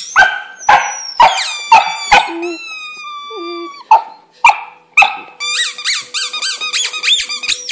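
An English Setter puppy giving a string of short, sharp, high yips and barks, with one longer held cry about midway, mixed with squeaks from a rubber squeaky toy it is mouthing. A fast run of high squeaks fills the last two seconds.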